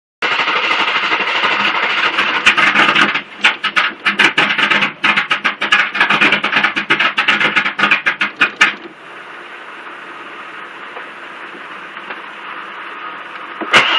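GM LT1 V8 being cranked over on the starter and not catching: a steady churning that turns into rapid, uneven pulsing about three seconds in. It drops to a quieter steady hum near nine seconds, and a sharp click comes just before the end.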